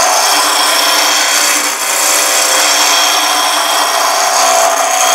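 Spindle roughing gouge cutting a spinning pine blank on a Record Power Coronet Regent wood lathe running at about 2000 rpm: a steady, continuous hiss of shavings being taken off, with the lathe's hum beneath it.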